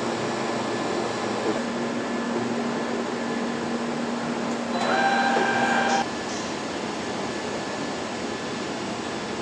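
Factory floor machinery running with a steady hum and hiss. About five seconds in, a louder pitched machine whine comes in and cuts off sharply about a second later.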